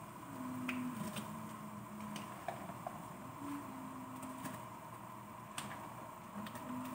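Light scattered clicks and taps of kitchen handling, the loudest about a second in, over a faint low hum that steps between a few pitches.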